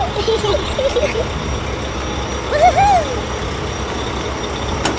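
Cartoon vehicle engine sound effect running steadily, with short wavering pitched vocal sounds near the start and again partway through.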